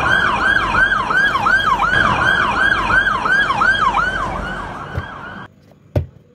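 Fast electronic yelp siren, about three to four sweeps a second, that cuts off suddenly near the end. A single sharp knock follows shortly after.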